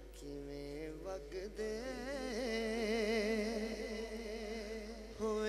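A man's voice singing a Punjabi naat: a long, drawn-out note without words, wavering with vibrato. It swells about two seconds in and eases off near the end.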